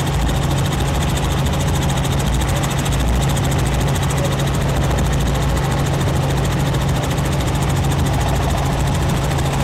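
Helicopter in flight: its engine and rotors make a steady low drone under a broad rush of noise.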